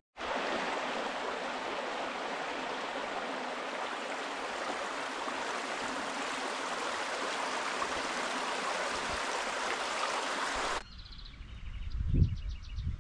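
A shallow rocky stream running over stones, a steady rush of water. It cuts off suddenly near the end, and a bird chirps briefly in quick repeated notes.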